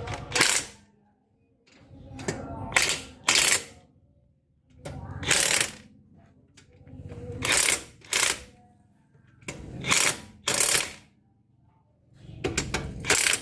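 Hand ratchet wrench worked in short strokes, its clicking coming in quick pairs about every two and a half seconds.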